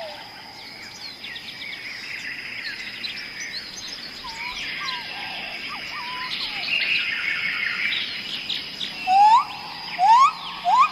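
Several songbirds chirping and trilling together over a steady high-pitched hum, with a few loud rising whistles near the end.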